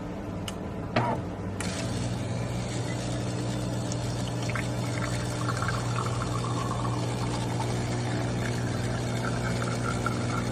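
A DeLonghi Magnifica S espresso machine clicks, then its vibratory water pump starts and runs with a steady buzz as water flows and pours.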